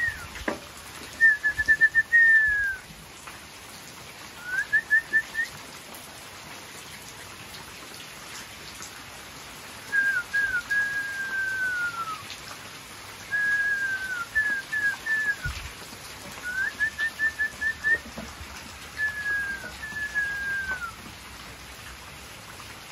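Whistled song in short phrases: runs of quick rising chirps and long falling whistles, repeated about six times with pauses between, over a steady faint hiss.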